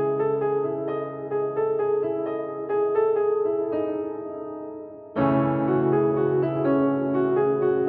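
Piano music playing slow, held notes and chords. It fades down, then a new phrase comes in suddenly and louder about five seconds in.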